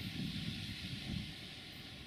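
Wind buffeting the microphone in irregular low gusts that ease off about a second and a half in, over a steady high hiss.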